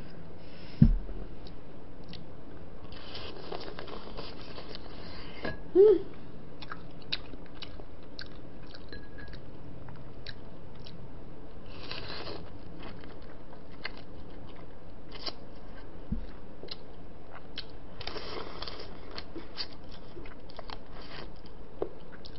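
Close-miked eating of spicy braised seafood: biting into and chewing crab and bean sprouts, with many small wet clicks and smacks and a few longer crunching stretches. A dull knock about a second in, and another near six seconds.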